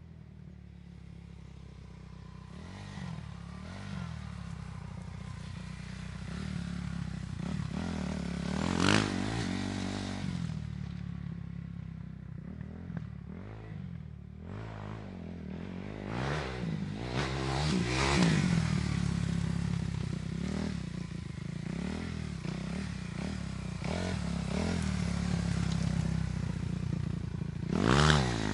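Dirt bike engine running and being revved over and over, its pitch rising and falling. It grows louder over the first several seconds, with sharp loud revs about a third of the way in, near the middle and again at the end.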